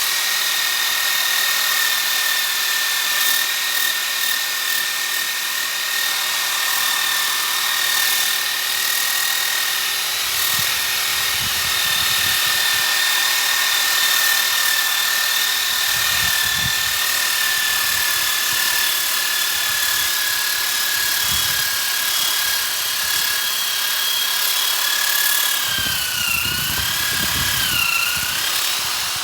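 Electric drill fitted with a 125 mm sanding-disc holder, running with a steady high whine while sanding wood, with a low scraping rumble each time the disc bears on the surface. Near the end the whine dips and wavers in pitch as the disc is pressed harder and the motor is loaded down.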